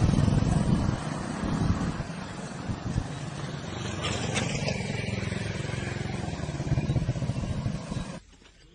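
Low, steady rumble of a motor vehicle's engine running, cutting off abruptly near the end.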